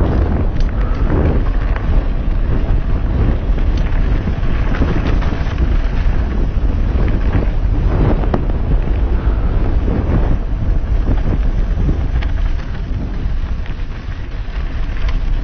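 Wind buffeting an action camera's microphone on a fast mountain bike descent, with the tyres running over a rough dirt trail and the bike rattling over bumps. The noise eases briefly near the end.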